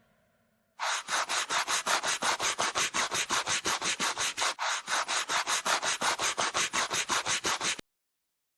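Sound effect of a train running past: a fast, even clatter of about six beats a second, cutting off abruptly near the end.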